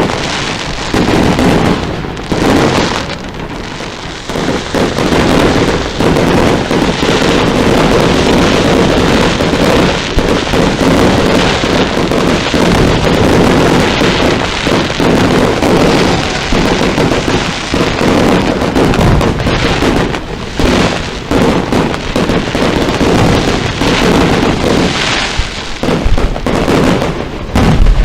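Fireworks display: a dense, continuous barrage of shells bursting and crackling in quick succession, the bangs overlapping one another, with a brief lull about three to four seconds in.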